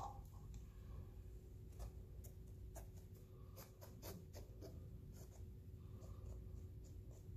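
Faint scattered light clicks and scratching of a thin wooden stick against a resin-coated board as it is dragged through wet epoxy, over a faint steady hum.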